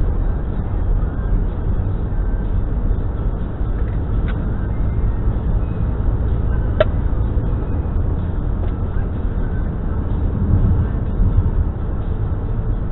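Steady low rumble of tyre and engine noise from a car driving along a paved road, heard from inside the cabin. A faint short tick sounds about seven seconds in.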